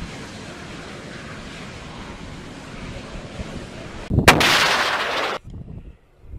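Burning diesel tanker truck: a steady rushing noise of fire and wind. About four seconds in comes a sudden loud blast with a sharp crack, an explosion that rumbles for about a second and then cuts off abruptly.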